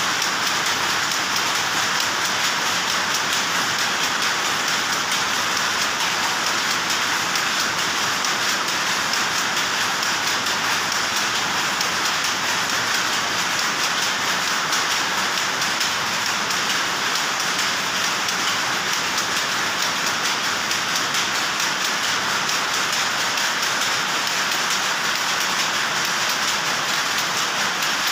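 Power looms running in a weaving shed: a dense, steady clatter of many rapid mechanical ticks that blurs into one continuous noise.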